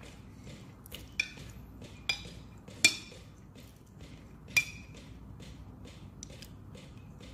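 Metal spoon clinking against a glass food container while scooping stew: four sharp clinks with a short ring, the third the loudest.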